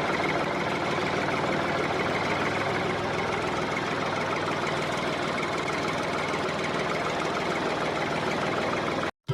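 Tractor engine idling steadily with a rapid knocking chug, stopping abruptly near the end.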